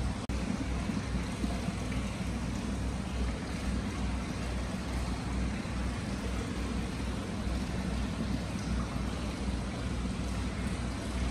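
Free-flowing hot-spring water welling up in a stone basin and spilling over into the bath, a steady rush of running water.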